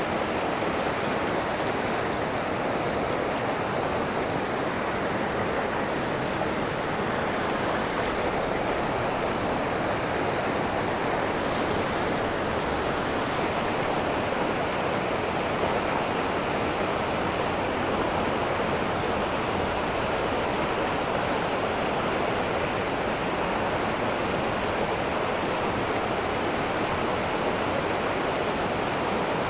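Mountain creek rushing over rocks through a whitewater riffle: a steady, even rush of water.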